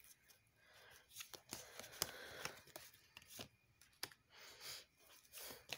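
Faint handling of oracle cards: soft rustles and a scatter of light clicks and taps as a card is drawn and laid down on the spread on a cloth.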